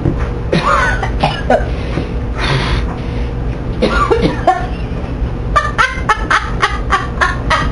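Microwave oven running with a steady hum, overlaid by irregular clusters of sharp crackling pops, denser in the second half: a BlackBerry phone sparking inside it.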